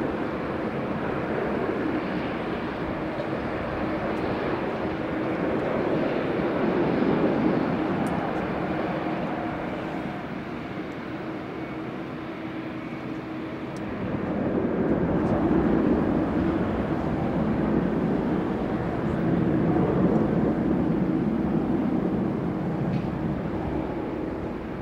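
Jet airliner engines running, a steady noisy sound with a constant low hum. It swells about a quarter of the way in and again from just past halfway, as the aircraft passes.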